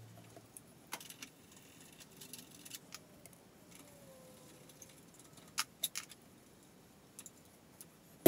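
Scattered light metallic clicks and clinks of a hand ratchet and small socket working the headlight retaining screws, with a louder pair of clicks about five and a half seconds in and a sharp click at the very end.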